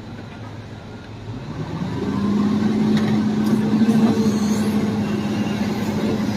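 Heavy diesel engine of mining equipment rising from a low idle to higher revs over about a second, then running steadily at the higher speed.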